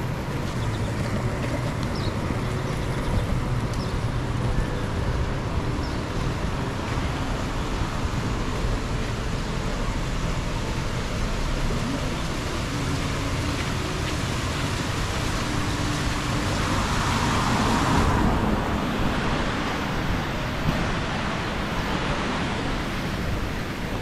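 Road traffic noise from passing cars, with wind rumbling on the microphone. The noise swells louder about three-quarters of the way through.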